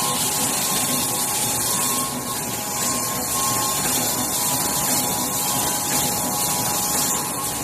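Full servo rotary tube screen printing machine running: a steady mechanical hiss and hum with a steady whine underneath.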